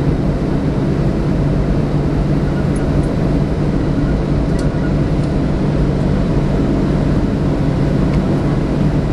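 Boeing 737-700 cabin noise while the airliner taxis: the CFM56 jet engines running at idle, heard inside the cabin as a steady rush with a low hum.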